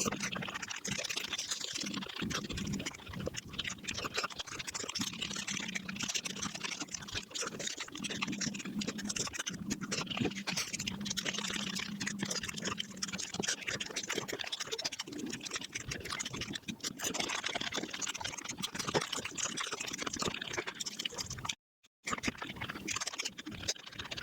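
Eating sounds sped up to five times speed: a rapid, unbroken patter of wet chewing and mouth-smacking clicks. A moment of dead silence breaks it shortly before the end.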